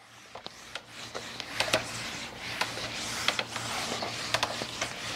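Handheld whiteboard eraser rubbing across a whiteboard in repeated wiping strokes: an uneven scratchy swishing with occasional short sharp clicks. It starts about half a second in.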